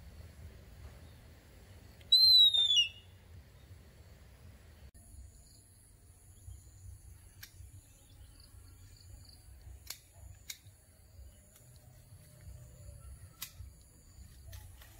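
A single high, whistle-like call, falling in pitch and lasting under a second, about two seconds in; a few faint clicks follow later.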